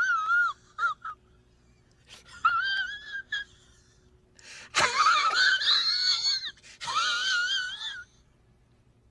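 High-pitched, wavering squealing wails in three bursts. One trails off about half a second in, another comes at about two and a half seconds, and the longest comes near the end.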